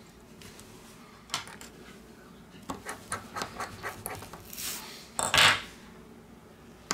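Small metallic clicks and scrapes as a precision screwdriver drives a screw into a small circuit board inside a Xiaomi Mi 9 SE: a quick run of light ticks in the middle, then a brief, louder scrape about five seconds in.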